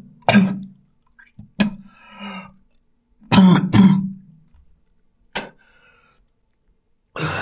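A man coughing hard: separate harsh coughs a second or two apart, the loudest pair about three and a half seconds in, as he coughs up blood into a sink.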